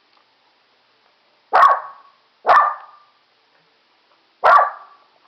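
Toy poodle barking three times, short loud barks about a second in, a second later, and near the end. These are fearful alarm barks at a talking toy it cannot make sense of.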